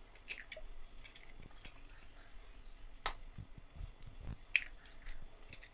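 Eggs being cracked open over a steel plate: a few sharp taps and clicks of eggshell, the loudest about three seconds in, followed by a few soft low knocks.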